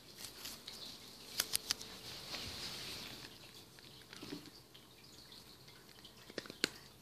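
A cat eating dry kibble from a bowl: a few sharp crunches and clicks, three in quick succession about a second and a half in and another near the end.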